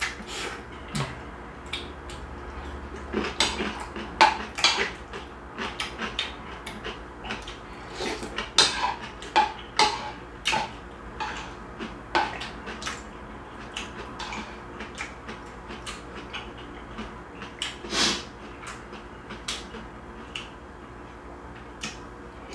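A metal spoon clinking and scraping against a ceramic soup bowl and a plastic container of cubed radish kimchi, in scattered irregular taps, with sipping and chewing between them.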